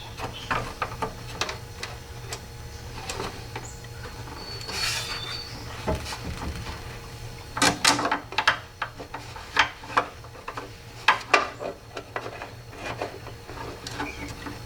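Irregular clicks, taps and light rattles of hands working on a car door's window regulator, handling its steel cables and clips. A brief swishing rustle comes about five seconds in, and the clicking is busiest around the middle.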